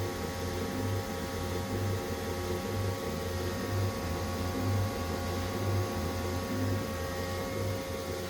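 Haas SL30T CNC lathe running with a steady machine hum: several fixed tones over a hiss, and a low drone that swells and fades unevenly.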